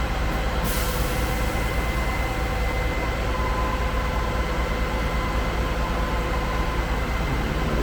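Concrete pump truck's diesel engine running steadily as its boom is manoeuvred, a constant low rumble with a faint steady whine over it.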